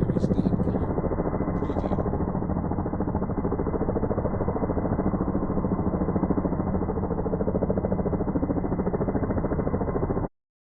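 Distant helicopter with the fast, steady beat of its rotor blades, cutting off suddenly near the end.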